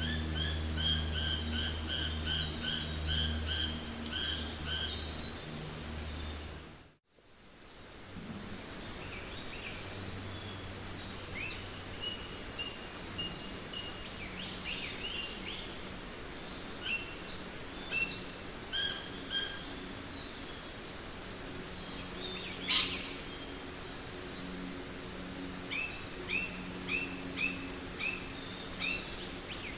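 Jungle ambience of many birds calling and chirping. It opens with a rapid string of repeated chirps over a low steady hum, drops out abruptly about seven seconds in, then returns with varied calls, one loud quick sweeping call about three quarters of the way through and a run of sharp repeated calls near the end.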